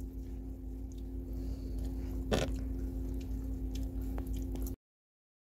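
Steady low drone inside a moving vehicle, with two steady hum tones over the rumble and a single click about two and a half seconds in. The sound cuts off suddenly near the end.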